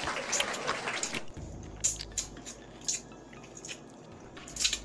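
Close mouth sounds of biting and chewing corn on the cob from a seafood boil: irregular wet smacks and sharp clicks.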